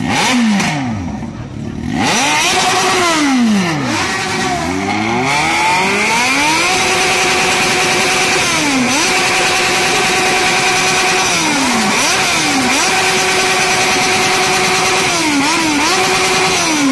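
Yamaha XJ6N's 600 cc inline-four engine revved hard with the bike standing still: a few quick rises and falls in revs, then held at a steady high pitch, with brief drops in revs several times near the end.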